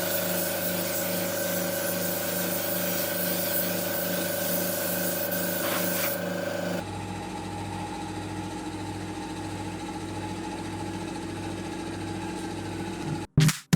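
An electric power tool running steadily as it works wood, a hum with a rubbing, rasping noise over it. About seven seconds in it cuts to a quieter, lower-pitched run, and music starts right at the end.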